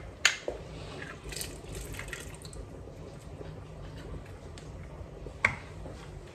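Lemon halves squeezed in a hand-held metal lemon press over a pot of chopped fruit: juice dripping into the pot, with a few sharp clicks of the press, the loudest just after the start and again near the end.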